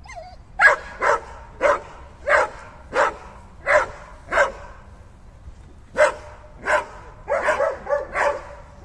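A dog barking repeatedly: single sharp barks about every two-thirds of a second, a pause of over a second, then more barks coming faster near the end.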